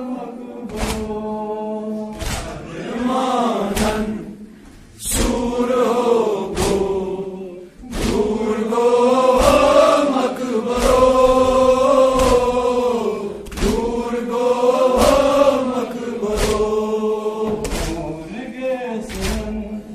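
Men chanting a Kashmiri noha (mourning lament), one lead voice on a microphone with the crowd joining in long held lines. A sharp slap of hands beating on chests (matam) comes about once a second, in time with the chant.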